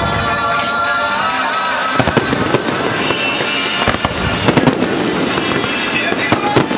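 Fireworks going off: a string of sharp bangs and crackles begins about two seconds in, over pop music with a steady beat.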